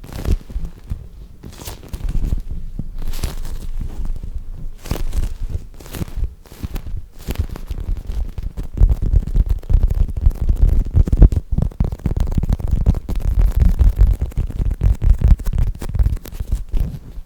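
Soft squishy toy squeezed and kneaded right against the microphone: a low rumbling handling noise, heavier in the second half, with scattered short crackles.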